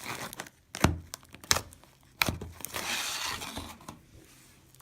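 Slime being stretched and squeezed by hand: several sharp pops in the first half, then a crackling, sticky rustle for about a second and a half in the middle.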